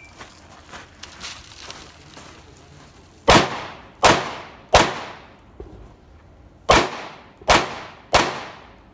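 Carbine fired six times in two quick strings of three, the shots about two-thirds of a second apart, each with a short echo trailing off. A few much fainter pops come before the first string.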